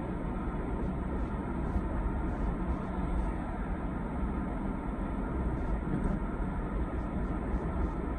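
Steady low rumble of a car driving along a road, with tyre and engine noise heard from inside the cabin.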